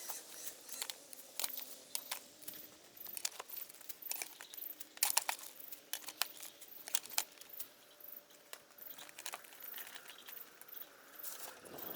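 Dry leaf mulch crackling and rustling, in a run of sharp, irregular crackles.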